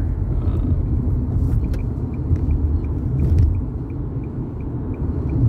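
Steady low rumble of a car's road and engine noise heard from inside the moving car, with a faint regular ticking about three times a second.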